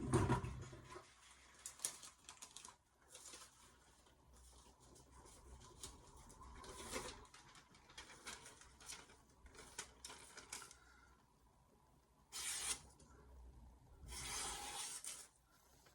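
Freshly sharpened VG10 stainless steel knife cutting through paper to test the edge: a run of short scratching, rustling strokes, with two longer hissing cuts near the end.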